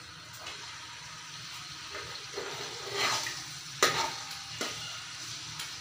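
Sliced onions sizzling in hot ghee in a steel pot as a steel ladle stirs them. The sizzle swells about three seconds in, and just before four seconds the ladle knocks sharply against the pot.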